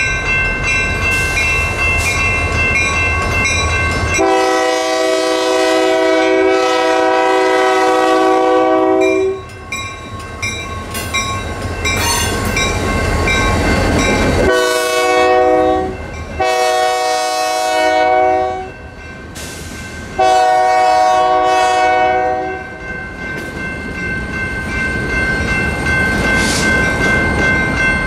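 A Union Pacific GP60 diesel locomotive sounds its air horn for a grade crossing: a long blast of about five seconds, then three shorter blasts a few seconds later. Through it all the crossing's General Signals Type 2 electronic bells ring steadily, and the freight train rumbles and rolls over the rails.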